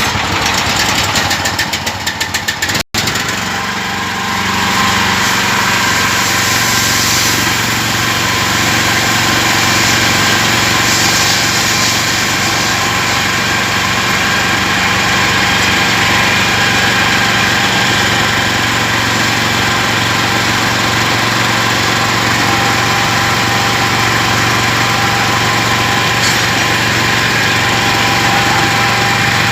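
Engine running steadily at an even speed. A fast rattle plays over it for the first few seconds and breaks off abruptly about three seconds in.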